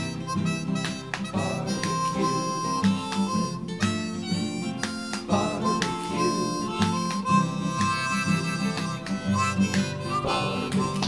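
Instrumental background music, with long held melody notes over a repeating lower accompaniment.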